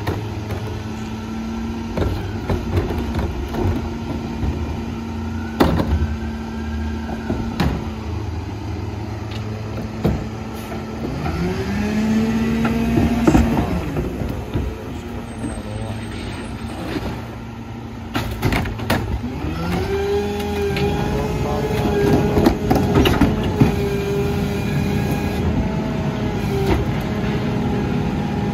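Diesel engine of a Kenworth garbage truck with a Leach 2RIII rear-loader body running steadily, then revving up twice as the rear packer is cycled, the second time held high for several seconds. Plastic trash carts clatter and bang against the hopper as they are tipped.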